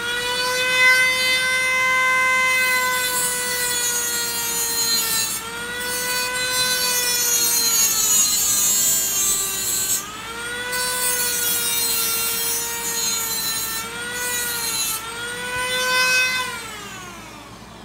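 Handheld rotary tool with a cutoff wheel running at high speed and grinding into the edge of a diecast metal truck cab: a steady high whine with several stretches of hissing grinding noise, the pitch sagging briefly as the wheel bites. It winds down with a falling whine near the end.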